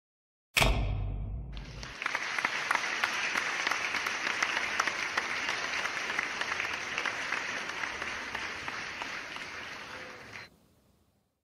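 A sudden deep thump about half a second in, then an audience applauding for about nine seconds before the applause cuts off suddenly.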